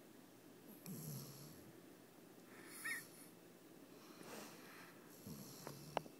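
Sleeping Basset hound snoring: two low snores about four seconds apart, with a short high-pitched squeaky breath between them. A brief sharp click comes near the end.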